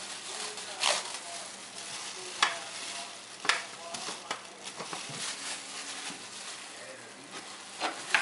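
Rustling of thin plastic food-handling gloves and a plastic bag, with several sharp crinkles, over a steady hiss.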